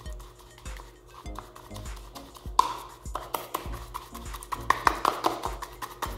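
Tint brush stirring and scraping hair-colour correctors and developer in a plastic tint bowl, with quick clicks and wet scrapes of the bristles and handle against the bowl sides as the mix is blended. The strokes get busier from about halfway, after one sharp knock, over soft background music.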